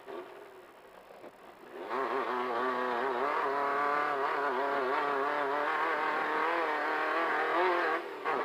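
Volkswagen Beetle race car's air-cooled flat-four engine, heard on board. It is quieter for about the first two seconds, then runs hard at high revs with its pitch wavering up and down, and dips briefly near the end.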